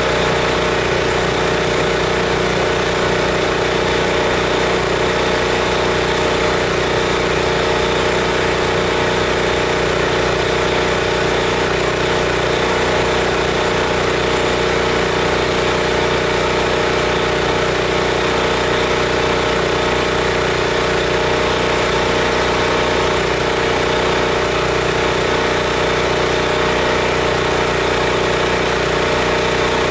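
Gasoline engine of a pressure-washer rig running at a steady speed, driving the pump while a chlorine mix is sprayed through a downstream injector. The pitch and level hold constant throughout.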